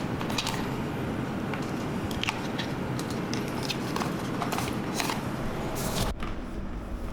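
Scattered clicks and knocks of gaming-chair parts being handled and fitted during assembly, over a steady background rush. The background drops away abruptly about six seconds in.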